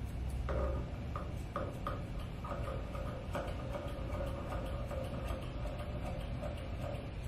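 Grooming shears snipping fur around a puppy's paw: a run of small metallic clicks. An on-and-off tone and a low hum sit underneath.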